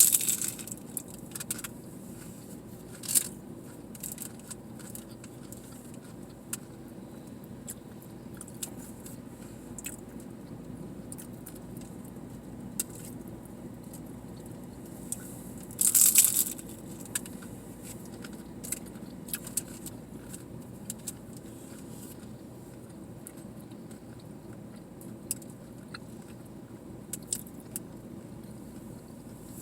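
Close-up eating sounds: chewing and biting into tacos, with scattered small clicks and smacks and two louder crunches, one right at the start and one about halfway through, over a steady low hum in a car's cabin.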